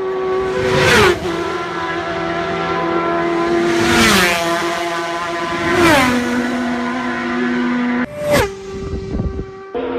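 Racing motorcycles at full throttle passing one after another, the engine note dropping sharply in pitch as each goes by. There are about four passes, the last a short, sharp one near the end.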